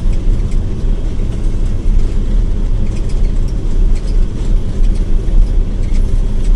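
John Deere 9700 combine running while cutting wheat, heard from inside the cab: a steady low rumble of engine and threshing machinery.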